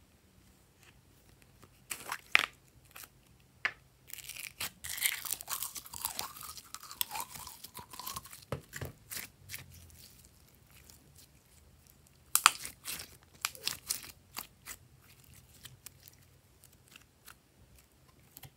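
Glossy slime being handled: wet, sticky clicks and pops as it is pressed and stretched by hand, with a dense run of crackling squelches from about four to nine seconds in and another cluster of clicks around twelve seconds.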